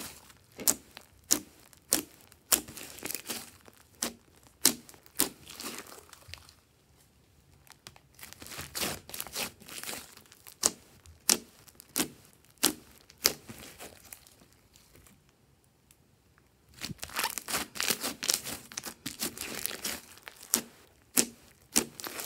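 Hands pressing and poking a large mass of purple slime, making sticky, sharp clicks and pops as trapped air bubbles burst. The pops come in quick irregular runs, with two quieter pauses about a third and two-thirds of the way in.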